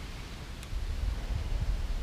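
Wind buffeting the microphone: a gusty low rumble under a steady hiss, growing louder about a second in, with one faint click just before.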